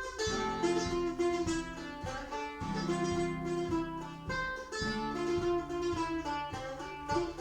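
Mandolin playing a plucked melody over lower sustained notes and chords on plucked strings, in a steady rhythm.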